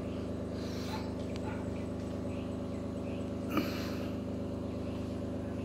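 Steady low hum of a running motor, with faint short high chirps now and then and one brief louder sound about three and a half seconds in.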